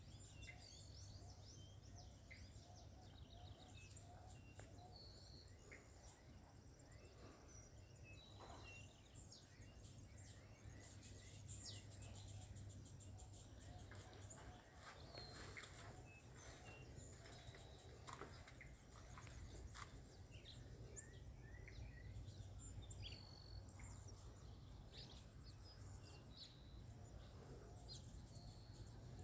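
Faint birds chirping, with many short high calls scattered throughout, over a steady low hum.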